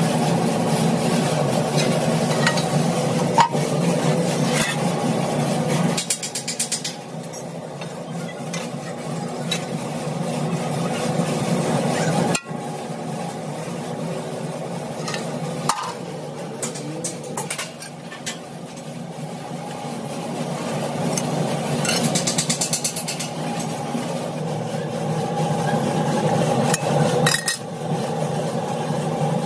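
Hydraulic shearing press running with a steady machine hum that eases and swells as the ram works, with a few sharp metallic clanks as steel plate is cut and handled.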